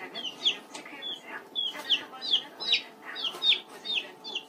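A baby chick peeping over and over: short, high, falling peeps, about two or three a second.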